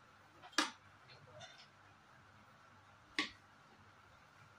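Two sharp clicks about two and a half seconds apart, with a few faint light taps between: a plate knocking against a large aluminium cooking pot while biryani rice is scooped out of it.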